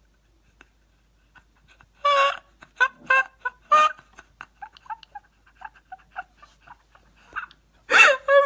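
A woman laughing helplessly, crying with laughter. After about two seconds with almost no sound comes a loud shriek of laughter, then a string of short, high squeaks as she gasps between laughs, and another loud burst near the end.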